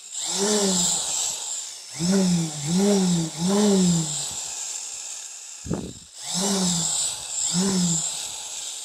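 A small battery hand tool, such as a cordless drill, being triggered in short bursts, about six times, each whirr spinning up and winding down again. There is one brief knock in between.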